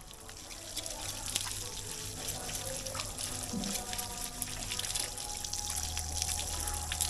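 Water from a wall tap pouring and splashing over a bathing person and onto concrete, with music playing in the background.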